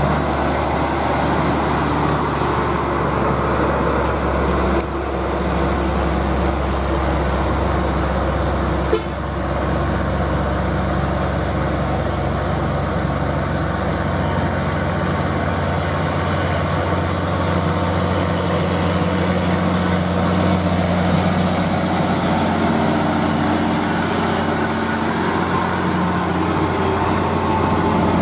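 Heavy diesel cargo trucks, among them an old Nissan Diesel, driving past one after another with their engines running steadily. The sound breaks off abruptly about five and nine seconds in, with a short click at the second break.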